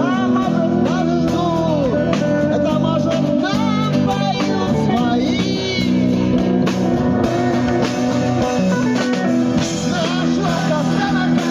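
Live rock band playing: a male lead vocal over electric and acoustic guitars, bass guitar and drum kit.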